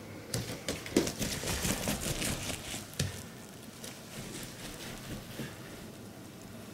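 Footsteps and scuffling of a barefoot person and a cat chasing each other across a floor and rug, with sharp knocks about one and three seconds in, quieter after that.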